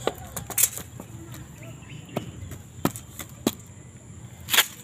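A rusty wire-mesh rat cage trap with a rat inside clinks and knocks as it is handled and set down on concrete. There are about six sharp metallic clicks, and the loudest comes near the end.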